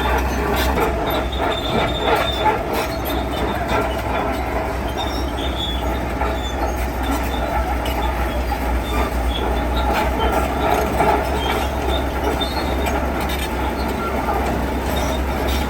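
Heavy construction machinery at work: a steady low engine drone under continuous metallic squealing and clanking of steel against steel and stone.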